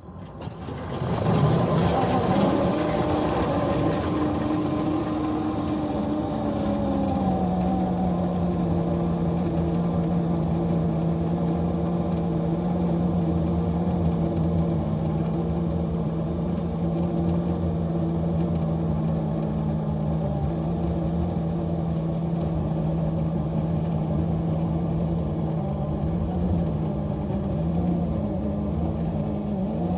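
Small locomotive engine running under load as it pushes a snow plow. It revs up at the start, settles to a lower steady pitch about seven seconds in, then runs evenly.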